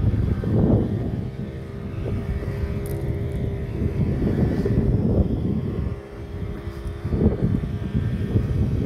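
A small fishing boat's motor running steadily with a low hum, under gusts of wind buffeting the microphone; it dips briefly about six seconds in.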